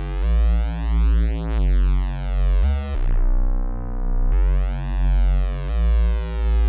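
Looped dark synthesizer bassline at about 88 beats a minute, a deep bass pulsing on each beat. The notes shift every second or two, and a sweeping, gliding shimmer runs through the upper tones near the middle.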